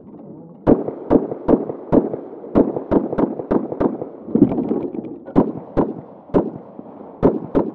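Stock Glock 19 MOS Gen 4 9mm pistol fired in quick pairs, about fourteen shots in all, with a pause of a second or so near the middle while the shooter shifts to another port.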